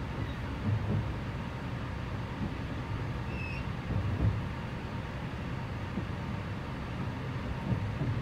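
Cabin noise inside an E653 series electric train slowing into a station: a steady low rumble with occasional low thumps from the wheels, and a short faint squeak about three and a half seconds in.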